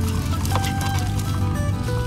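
Background music with held melodic notes that step between pitches, over a steady low hum.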